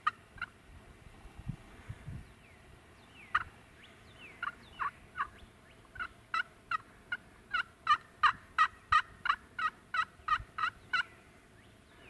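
Hen turkey yelps from a hunter's turkey call calling to a gobbler: a few scattered yelps, then a long even run of about three yelps a second that stops about a second before the end.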